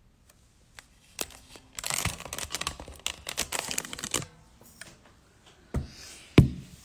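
Handling noise from a phone being grabbed and fumbled: fingers rub and scrape over it for about three seconds, then a few sharp knocks, the loudest about six and a half seconds in.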